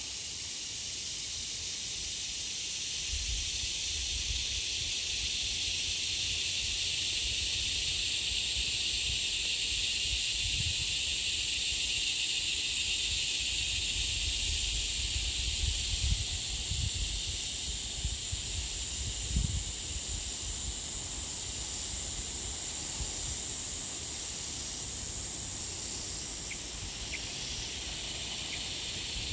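Steady, dense high-pitched buzzing of an insect chorus, with a regular pulsing higher still. A few low bumps and rumbles on the microphone come around the middle.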